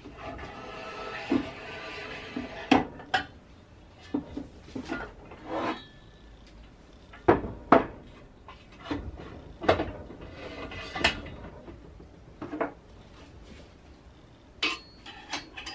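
Aluminium extrusion profiles of a machine frame being handled and fitted together on a wooden workbench: irregular sharp knocks and metallic clacks, about a dozen, each with a short ring.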